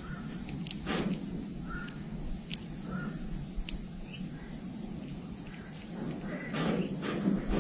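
A bird's short, scattered calls, with rustling and a few sharp clicks.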